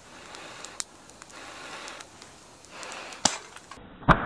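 Wood campfire crackling under a grill of shell-on oysters, with scattered small crackles and two sharp loud pops about three and four seconds in.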